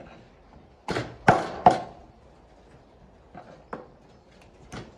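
Meat cleaver chopping raw meat on a wooden cutting board: three hard chops in quick succession about a second in, then a few lighter chops.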